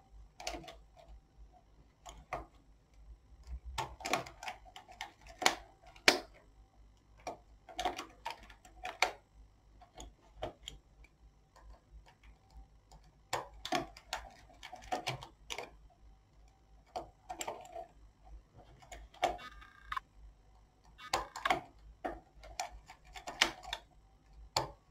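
Knitting needles clicking against each other at an irregular pace, one to a few clicks a second, as stitches are worked.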